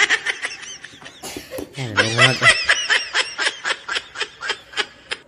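A person laughing: a long run of quick, high-pitched giggles, broken about a second in by a sharp intake of breath, then carrying on and fading out near the end.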